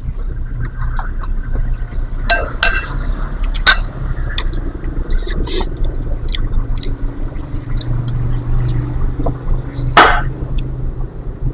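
Close-miked eating of lontong kikil: chewing, with a few sharp clinks of a spoon on a plate, the loudest about ten seconds in, over a steady low hum.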